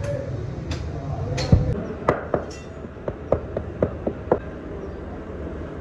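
A heavy thump about a second and a half in, then about eight sharp knocks of a mallet tapping a metal pattern bedded in a sand mould, rapping it loose from the sand. A steady low hum runs underneath.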